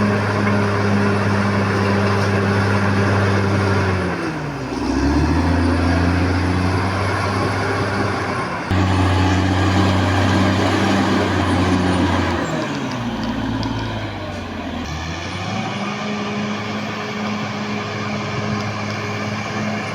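Caterpillar D6R XL bulldozer's diesel engine running loud and steady; its pitch sinks twice, about four seconds in and again after about twelve seconds, each time holding low for a few seconds before rising back up.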